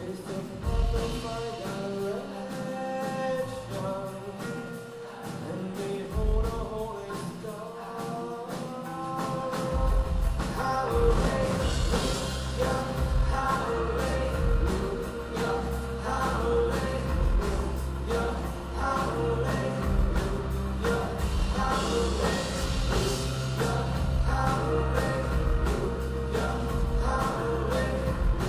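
Music with singing; a heavy bass line comes in about ten seconds in and carries on.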